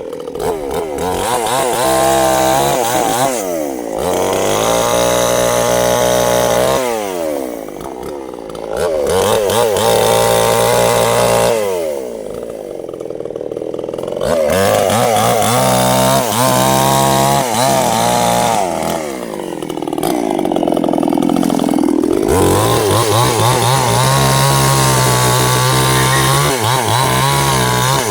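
Stihl two-stroke chainsaw cutting sengon wood, its engine pitch rising and falling as it works, dropping low about four times between runs at high revs.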